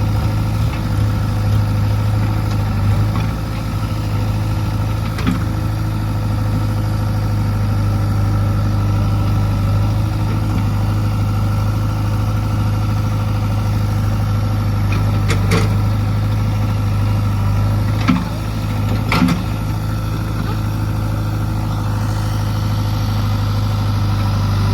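Heavy diesel engine running steadily near idle, a low even hum. A few brief knocks sound over it, about five seconds in and again three times near the middle and later.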